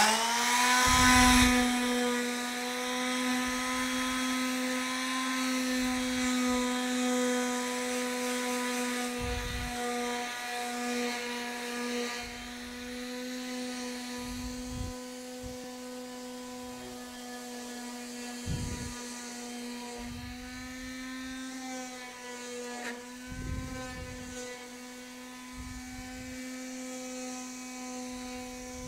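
DeWalt quarter-sheet palm sander spinning up at the start with a rising whine, then running steadily while sanding a cherry wooden spoon. Its pitch wavers a little as it is pressed and moved over the wood, with a few soft knocks along the way.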